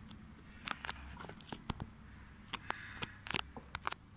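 Room tone with a scattering of small, irregular clicks and ticks, about a dozen over a few seconds.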